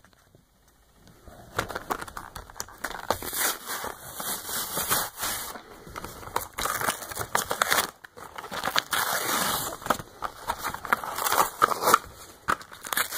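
A trading-card blister pack being torn open by hand: plastic blister and cardboard backing crinkling, crackling and tearing. It starts about a second and a half in and pauses briefly about eight seconds in.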